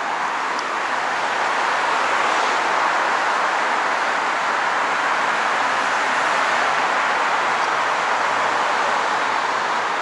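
Steady road traffic noise: the rush of passing cars' tyres on the street, swelling a little about two seconds in.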